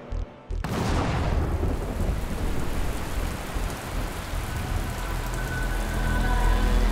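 A few low thumps, then about half a second in a sudden loud, thunder-like rumbling rush of noise that runs on. Faint steady tones rise under it near the end.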